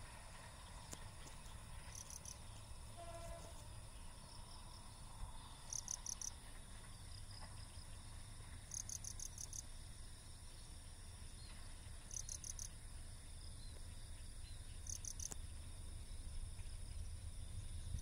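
Crickets chirping faintly, with short bursts of rapid high trills every few seconds over a steady high insect hum and a low rumble underneath. A short, faint horn toot sounds about three seconds in.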